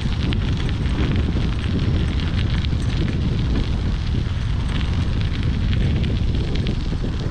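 Wind buffeting the microphone of a bike-mounted GoPro at riding speed, a steady heavy rumble, with bicycle tyres crackling over the trail surface.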